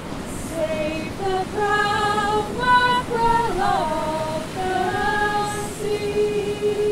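Female singing of a slow folk melody, with long held notes and gentle slides between pitches, over a steady wash of sea surf.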